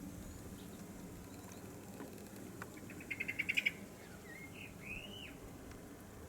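A small songbird singing: a quick run of about ten short notes that grows louder, followed by two short whistled glides, over a low steady background rumble.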